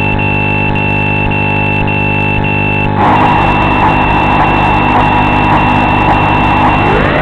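Steady electronic buzz with a high tone pulsing about twice a second. About three seconds in, the FPV quadcopter arms and its brushless motors start spinning at idle with a noisy whine. Near the end the whine rises sharply in pitch as the throttle goes up for takeoff.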